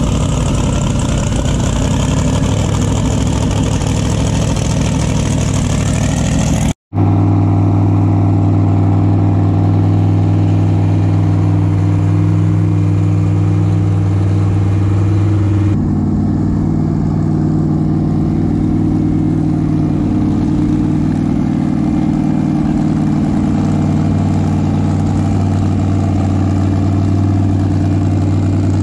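Twin-turbo engine of a Force F21 ski race boat idling steadily. The sound cuts out for a moment about seven seconds in, then the steady idle carries on.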